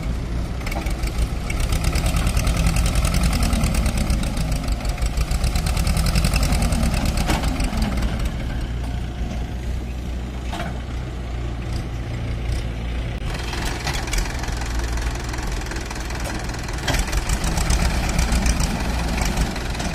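Old Escort tractor's diesel engine running with a rapid knocking firing beat. It gets louder for several seconds from about two seconds in, and again near the end.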